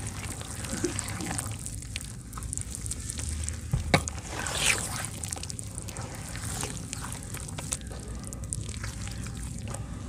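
A hand squishing and stirring wet red dirt mud in a bucket: irregular wet squelching and sloshing, with a sharp click about four seconds in.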